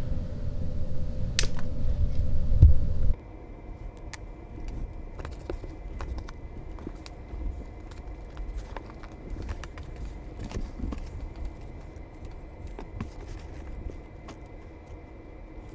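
A low rumble that stops abruptly about three seconds in, then a hand sifting through worm castings and shredded paper bedding in a worm bin: soft rustling with many small crackles and clicks, over a faint steady high tone.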